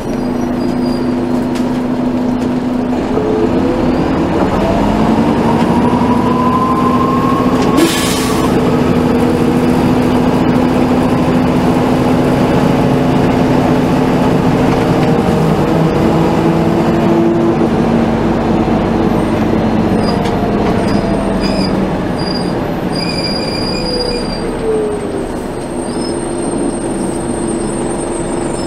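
Interior sound of a 1996 NovaBUS RTS transit bus's Detroit Diesel Series 50 inline-four diesel and Allison V731 automatic transmission. The drivetrain whine rises as the bus pulls away and shifts up through the gears, then falls as it slows near the end. About 8 seconds in there is a short burst of hiss.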